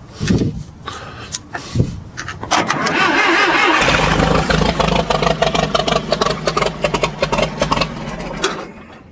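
Old Massey Ferguson backhoe's engine being started with the starter jumped by a screwdriver, because the key switch doesn't work. A few sharp clicks come first, then about two and a half seconds in the starter cranks, the engine catches and runs loud and rough for several seconds, and it falls away near the end.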